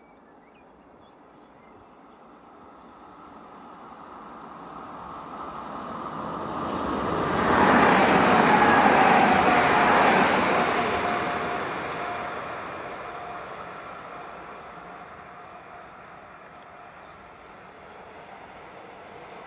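A train passing close by: rumble and wheel-on-rail noise swell to a peak about eight seconds in, with a whine that drops slightly in pitch as it goes by, then fade away.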